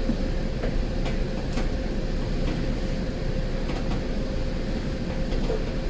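MBTA Green Line light-rail train heard from inside the car: a steady low rumble with a steady hum and a few light clicks.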